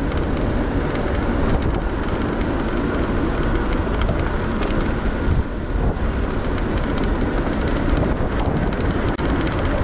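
A car driving through city traffic: steady road and engine noise, with some wind on the microphone.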